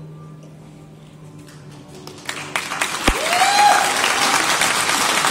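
The last held note of the dance music fades away, then an audience breaks into applause about two seconds in, with a single whoop rising above the clapping about three seconds in.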